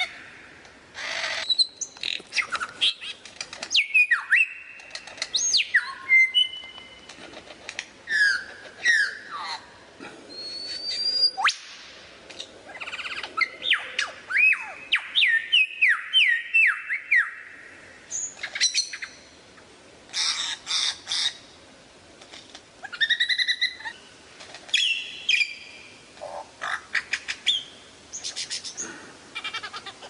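A Samyong songbird singing: varied phrases of clear whistles that glide up and down, mixed with sharp chirps and harsher notes and broken by short pauses, including a quick run of repeated sweeping notes about halfway through.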